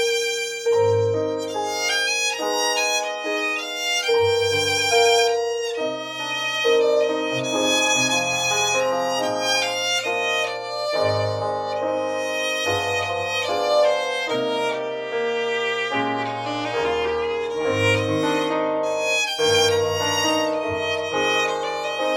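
Background music: a violin melody over a low accompaniment, with notes changing about every half second.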